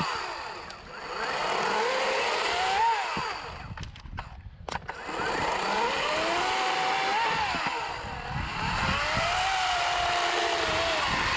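Battery-powered EGO 18-inch chainsaw running in several bursts: its whine rises, holds and falls away each time, over the hiss of the chain. A few sharp clicks come in a short lull about four to five seconds in.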